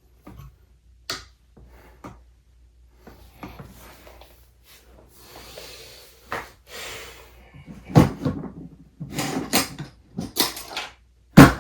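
Handling of tools at a workbench: scattered clicks and knocks, with a brief rustling scrape in the middle and the loudest knocks at about eight seconds and near the end.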